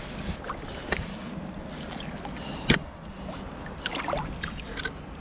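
Shallow river water splashing and sloshing as a landed zander is held in it and moves its tail, with scattered small splashes and a sharper hit a little under three seconds in.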